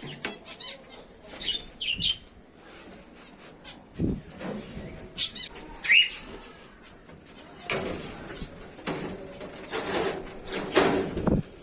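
Small aviary cage birds chirping in short high calls, with a burst of wing flapping and rustling in the cage through the second half.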